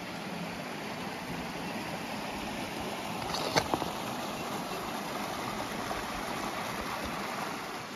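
Steady rush of water tumbling over small rocky cascades, with a couple of brief knocks about three and a half seconds in.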